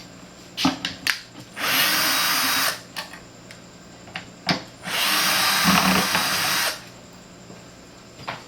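Handheld power drill-driver running in two short bursts, the second longer, with a few clicks and knocks of handling between them. Typical of backing out screws to free a car speaker.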